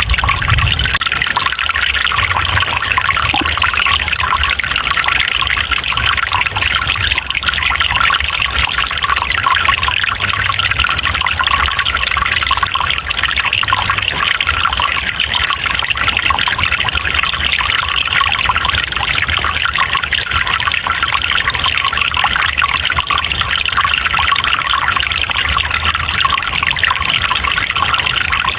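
Running water from a small forest stream, trickling steadily without a break.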